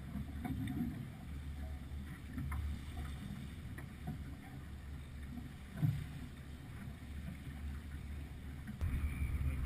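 Wind buffeting the microphone and water rushing along the hull of a sailing yacht under way, with one brief knock about six seconds in.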